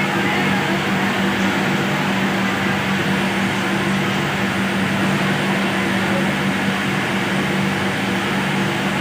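Steady din of a garment factory floor: many industrial sewing machines running together, with a constant machine hum under an even wash of noise.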